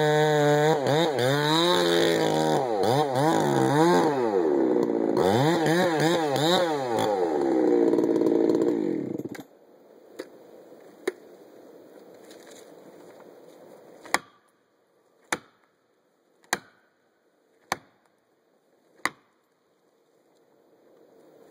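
Chainsaw running, its engine revved up and down as it cuts, then shutting off about nine seconds in. After that come two light knocks and then five loud, evenly spaced strikes about a second and a quarter apart: an axe driving a felling wedge into the cut to tip a large cedar over.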